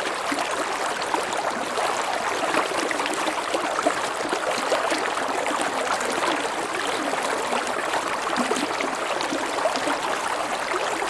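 Stream water running over a low, gentle waterfall: a steady rushing and splashing with many small gurgles.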